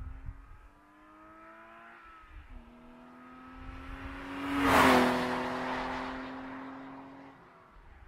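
BMW E36 323i's 2.5-litre straight-six on its stock exhaust, accelerating toward the camera with its pitch climbing, shifting up about two and a half seconds in, then passing loudly near five seconds in with a drop in pitch and fading away.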